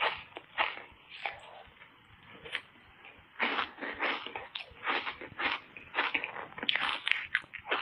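Frozen foam ice coated in matcha powder being bitten and chewed close to the mouth, in quick, irregular crunches. The crunching thins out for a couple of seconds, then comes thick again from about three and a half seconds in.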